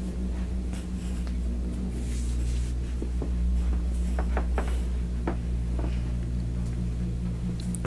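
Steady low hum with a few scattered soft clicks and rustles of a handheld camera being moved about.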